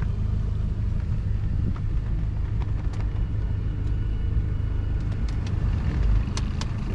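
Boat's Mercury 60 outboard motor running steadily at low speed, a constant low rumble, with a few faint clicks over it.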